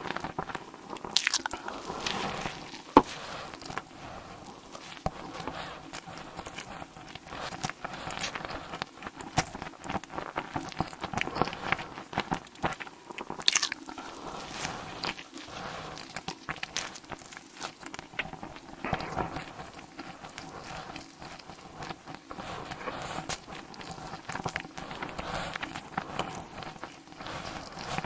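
Close-miked eating: a person biting and chewing food, with crisp crunches at irregular intervals; the sharpest bites come about three seconds in and again about thirteen and a half seconds in.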